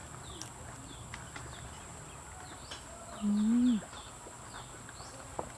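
Small birds chirping repeatedly over a steady high-pitched insect drone. About three seconds in there is one short, louder, low call that rises and then drops.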